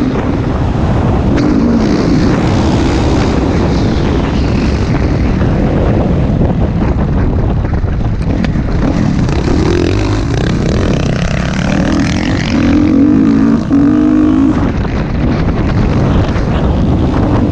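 Motocross dirt bike engine running under race load, heard close up with wind rushing over the microphone. The engine note falls as the bike slows, then rises again as the rider gets back on the throttle.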